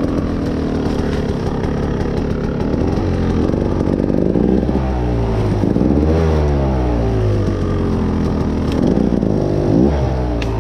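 Off-road dirt bike engine running at low speed, with repeated throttle blips that make its pitch rise and fall several times, the strongest in the middle and near the end.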